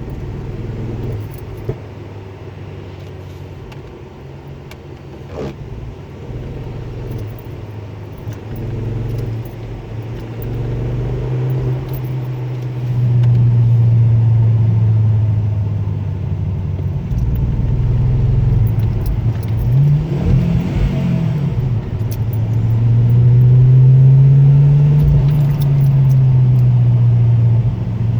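Ford Focus ST mk2's turbocharged five-cylinder engine running under throttle, its note climbing and falling with the revs. It gets louder about halfway through, drops back near the two-thirds mark, then climbs again.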